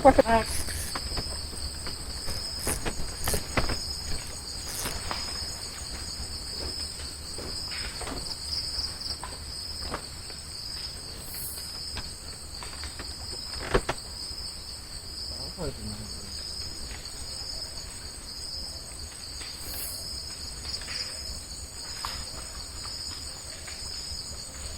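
Night insects trilling in a steady, high-pitched chorus at two pitches, with scattered faint clicks and one sharper click about 14 seconds in.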